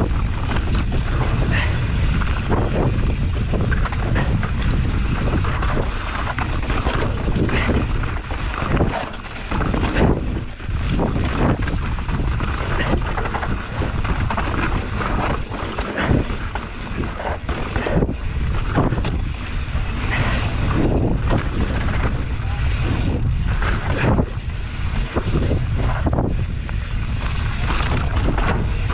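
Wind buffeting the microphone in strong, uneven gusts, with a heavy low rumble under a rushing hiss.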